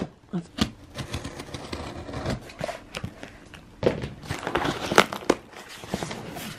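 Hands handling a taped cardboard shipping box: irregular scrapes, rustles and light knocks against the cardboard and packing tape, the sharpest knock about five seconds in.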